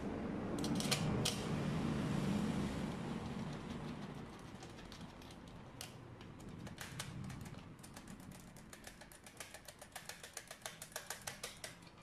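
Series of small sharp metallic clicks from hands working on a metal coin-slot panel and its screws, coming quicker, about three or four a second, in the second half. A low rumble fades out over the first few seconds.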